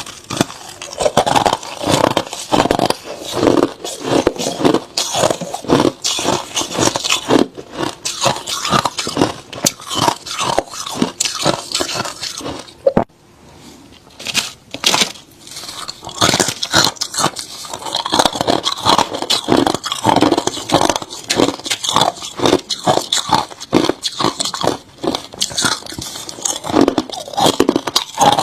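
Close-up crunching of hard crushed ice being bitten and chewed, a rapid run of sharp cracks and grinding, with a brief pause about halfway through.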